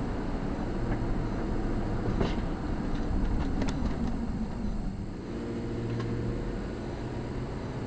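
Car engine running and tyre and road noise heard from inside the cabin while driving. The engine note falls and settles to a steady tone about four to five seconds in, and there is a light click a little after two seconds.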